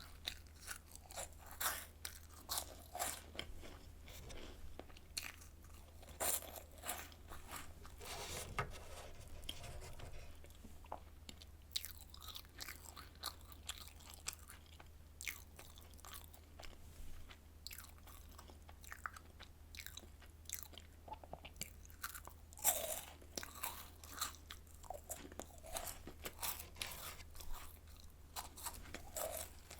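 Close-miked crunching and chewing of air-fried Home Run Ball choco-filled puff snacks made extra crisp: irregular clusters of sharp crackles as the crisp shells are bitten and chewed, over a faint steady low hum.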